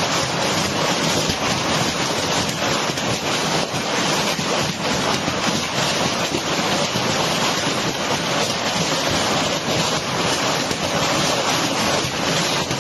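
Heavy hail falling with rain: a dense, steady clatter of countless small hailstone hits over the hiss of the downpour.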